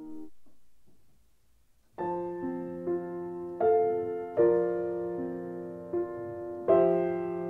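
Background piano music: a held chord dies away at the start, then after a pause of about a second and a half, slow piano notes and chords are struck about once a second, each ringing on.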